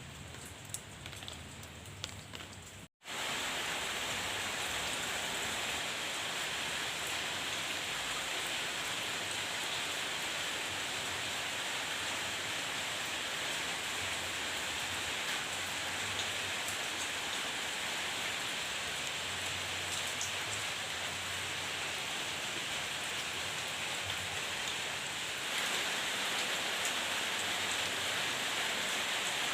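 Steady rain falling as an even hiss. About three seconds in the sound cuts out for an instant and comes back louder, and near the end it steps up a little again.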